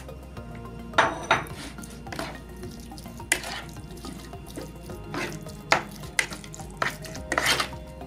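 Metal spoon stirring raw minced mutton in a plastic bowl, making irregular scrapes and knocks against the bowl.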